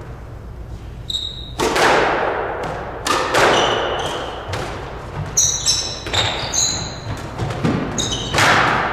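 Squash rally: the ball struck by racquets and hitting the walls, each sharp hit echoing around the court. Sneakers squeak on the hardwood floor about a second in and several times in the second half.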